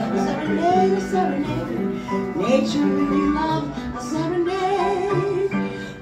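A woman singing a song into a microphone with piano accompaniment, holding a long note late in the stretch.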